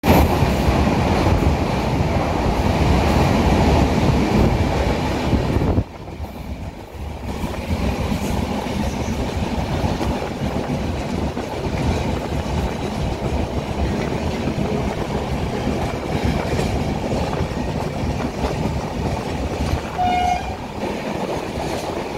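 A train running on the rails, a steady noise that drops sharply about six seconds in and then carries on a little quieter. A brief high tone sounds near the end.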